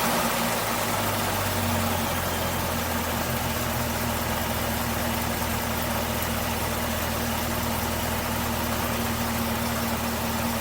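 Supercharged 6.2-litre LT4 V8 of a 2021 Camaro ZL1 1LE idling steadily.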